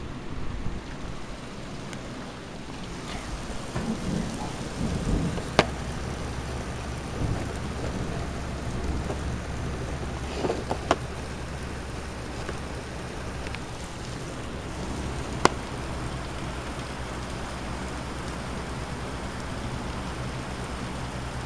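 Heavy rain falling steadily during a thunderstorm, with thunder rumbling about four to six seconds in. A few sharp clicks stand out over the rain.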